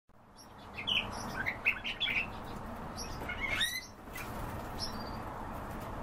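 Several caged songbirds chirping. A busy run of short, high chirps fills the first few seconds, with one call sweeping up in pitch about halfway through. After that only a few scattered chirps are heard over steady background noise.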